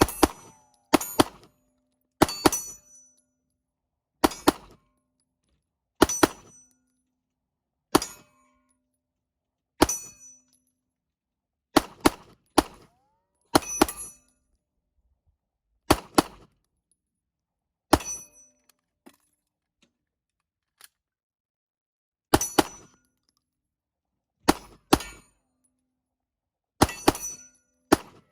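AR-style rifle fired shot after shot at steel targets, roughly one shot every two seconds with a few quick pairs; each shot is followed by the ring of a steel plate being hit. A pause of about four seconds falls a little past the middle.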